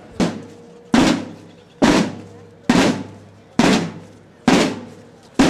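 Field drums struck together by a marching drum corps in a slow, steady beat: seven unison strikes, a little less than a second apart, each ringing briefly with a snare rattle.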